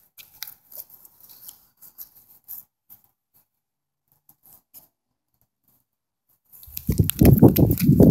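Light crackles and rustles of movement through dry leaves, then from about six and a half seconds a loud rustling and scraping as branches and leaves of a shrub brush against the phone's microphone.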